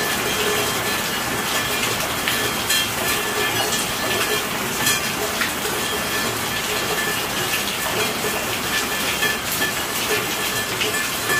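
Steady rain falling: a dense, even hiss with scattered sharp ticks of individual drops striking.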